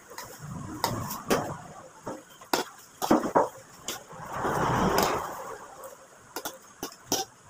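Eating at a table: a metal spoon and fork clink and scrape against a plate several times in short sharp clicks. A louder rushing sound swells and fades about four to five and a half seconds in.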